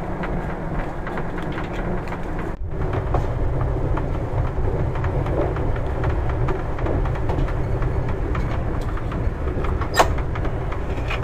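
Running noise of a Rajdhani Express passenger coach heard from inside the compartment: a steady low rumble with faint wheel clicks. It drops out for a moment about two and a half seconds in and comes back a little louder, and a sharp click stands out about ten seconds in.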